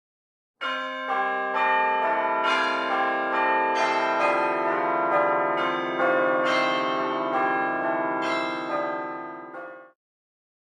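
Church bells pealing, a new bell struck about twice a second with the earlier ones still ringing, until the sound cuts off abruptly near the end.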